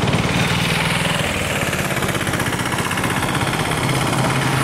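An engine running steadily, its pitch sinking slowly.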